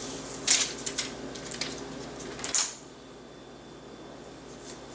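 A nylon furniture safety strap with a hook-and-loop fastener being handled: light rustles and clicks, with two short ripping sounds, one about half a second in and one about two and a half seconds in.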